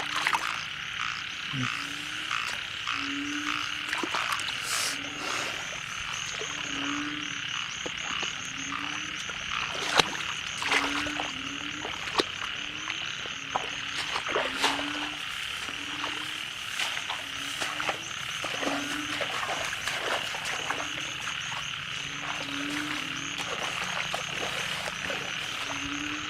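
A chorus of frogs croaking: short low croaks repeat about once a second over a steady, dense, high-pitched chorus, with scattered sharp clicks.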